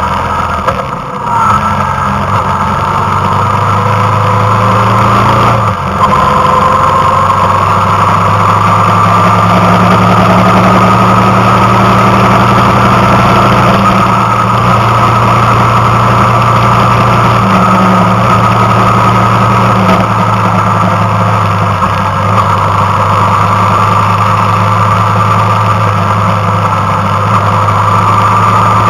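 Vehicle engine running steadily under way, with road and wind noise; the engine note steps down briefly about six seconds in and shifts a little again later.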